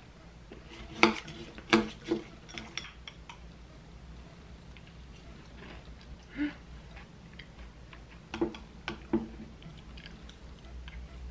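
Plastic spoon clinking and scraping against a glass mug of yogurt and granola: a few sharp clinks about a second in and two more near the end.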